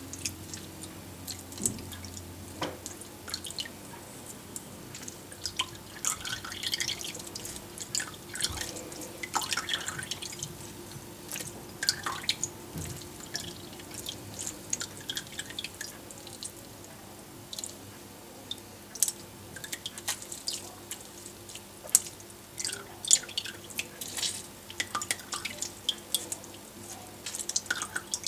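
Lemon-ginger syrup dripping and trickling through a strainer as the boiled lemon slices are pressed for their juice: irregular drips and small splashes.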